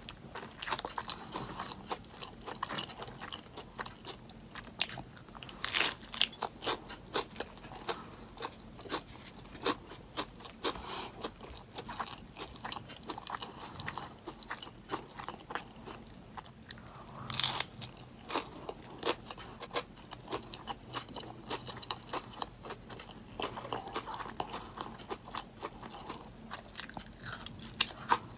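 Close-miked chewing and crunching of a lettuce-wrapped meatless burger, many small wet clicks with two louder crunchy bites, about six seconds in and again near the middle.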